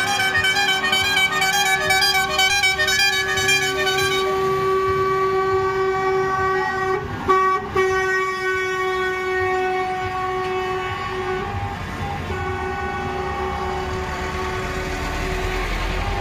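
Horns of a passing convoy of trucks and vans held in long, overlapping blasts over engine noise, with a fast warbling pattern up high for the first four seconds. A short loud blast comes about seven seconds in, and a heavy truck's engine rumbles close by near the end.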